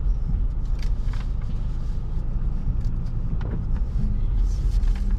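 Car cabin road and engine noise while driving: a steady low rumble.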